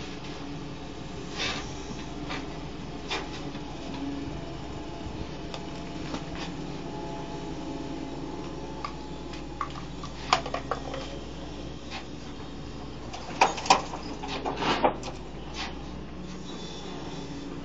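Doosan DX140W wheel excavator running steadily as it slews and raises its arm. A few sharp clanks come about ten seconds in, and a louder cluster of clanks follows a few seconds later.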